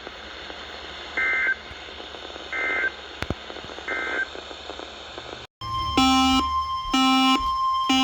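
Three short bursts of warbling data tones about a second apart over radio hiss: the EAS end-of-message code closing a weather radio warning. After a brief dropout a new alert starts: a steady high tone with a repeating electronic beep pattern about once a second.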